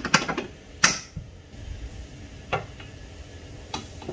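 Suspension link and bracket parts clicking and knocking as they are fitted by hand: a quick cluster of clicks at the start, the loudest knock just under a second in, then a few single clicks spread apart.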